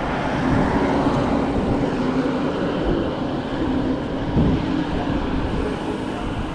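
Strong wind blowing across the microphone, a dense, steady rushing noise with heavy low rumble.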